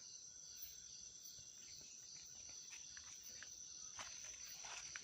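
Night insects, crickets among them, chirring in a steady high-pitched drone, with a few faint clicks and rustles.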